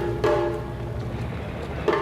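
Background music: a pulsing figure of struck pitched notes, about four a second, breaks off about half a second in, leaving a low steady bed, and a new struck note comes in near the end.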